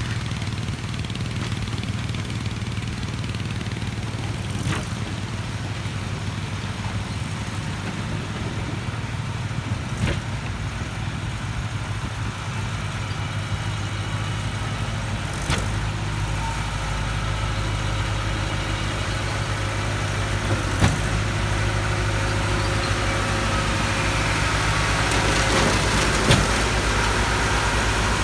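Schwing Stetter SP1200 concrete pump running steadily, its engine growing louder from about halfway, with a sharp knock about every five seconds as the pump changes stroke.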